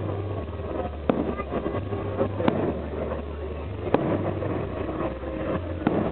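Fireworks salute going off: four sharp bangs at uneven intervals over a continuous low rumble and noisy din.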